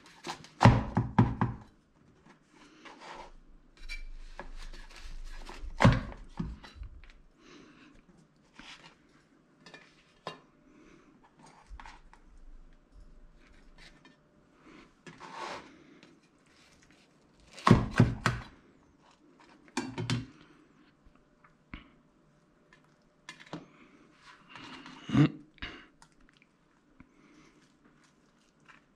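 A kitchen knife cutting a folded tortilla quesadilla on a plastic cutting board, the blade knocking on the board in short clusters of strokes. Between them come the softer clatter of the wedges and knife being set down on a plate and the counter, and quiet handling.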